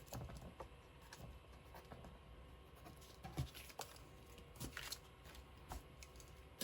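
Faint rustling of paper being handled, with a few light taps and clicks scattered through.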